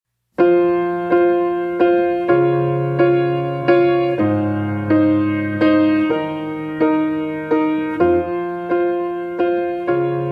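Background music: a piano playing the slow intro of a ballad, evenly repeated chords at about three every two seconds over bass notes that change every couple of seconds, starting just after a brief silence.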